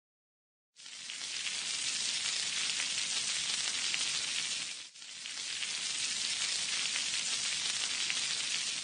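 Butter, garlic and corn kernels frying in a pan: a steady sizzle that starts about a second in and breaks off briefly about five seconds in.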